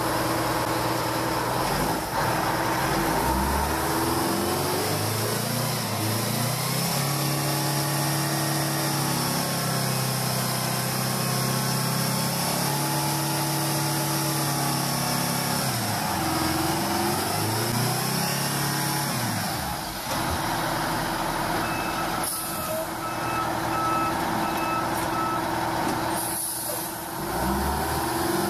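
Heavy military tractor truck's diesel engine labouring in mud, revving up and falling back several times. About three-quarters through comes a few seconds of intermittent beeping, with two short air hisses.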